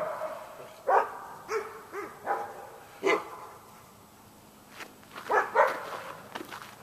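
A dog barking in short single barks, several in the first three seconds, then a lull and two more barks about five and a half seconds in.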